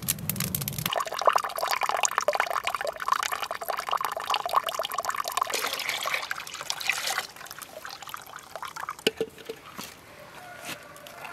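Water pouring hard into a plastic bucket, splashing as the bucket fills. The pour stops about seven seconds in, leaving a few light knocks. It opens with a second of a wood fire crackling.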